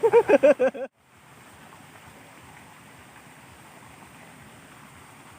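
A person's voice, loud and quickly wavering in pitch, for about the first second, cut off abruptly; then steady outdoor background noise with no distinct events.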